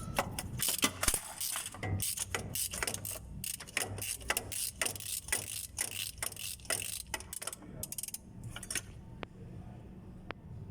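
Hand ratchet wrench clicking in quick runs while undoing the bolts that hold the gearbox to the engine. The clicking thins to a few separate clicks near the end.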